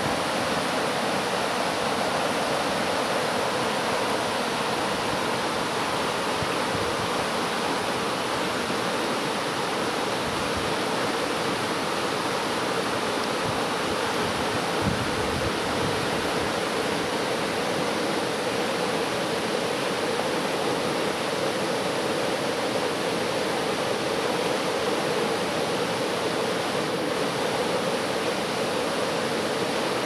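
River water rushing steadily, an even, unbroken rush with no change in level.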